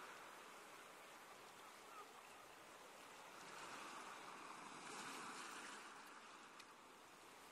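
Very faint sea surf: waves washing up on a sandy shore as a soft, even hiss that swells and fades in the middle.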